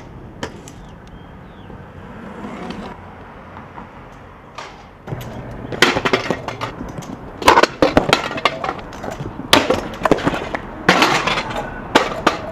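Stunt scooter wheels rolling and clattering over paving stones, with sharp clacks from the wheels and deck landing and hitting the ground. A few light clicks come first; the rolling grows loud about five seconds in, and near the end the scooter crashes down as the rider falls.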